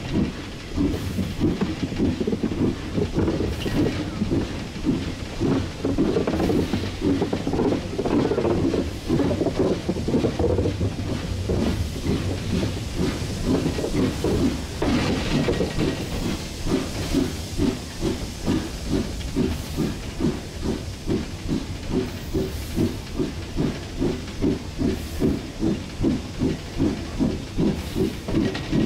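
1943 Davenport-built steam locomotive working along, heard from the cab: a chuffing exhaust beat over a constant hiss of steam. The beat is uneven at first and settles into an even rhythm of about two chuffs a second about halfway through.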